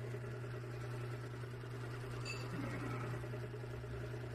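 PC case fans running: a steady hum with a fast, even flutter.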